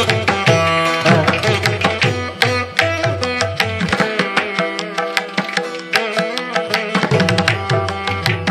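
Background instrumental music with a quick, even drum beat over a sustained melody. The deep bass drum drops out for about three seconds in the middle.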